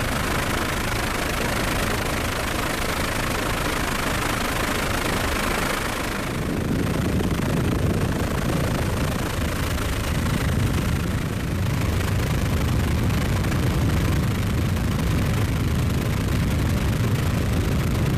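Steady helicopter engine and rotor noise, heard from aboard. About six seconds in, a high hiss gives way to a deeper rumble.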